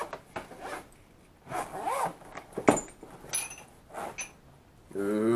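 Zipper on the paintball marker's soft case being pulled open in several short strokes, with a sharp click about halfway through.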